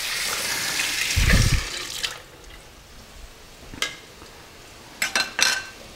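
Water running from a kitchen tap, shut off about two seconds in, followed by a few light clicks.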